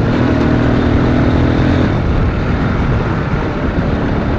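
Off-road vehicle engine running close by while driving, holding a steady pitch for about the first two seconds, then going over to a rougher, noisier rumble.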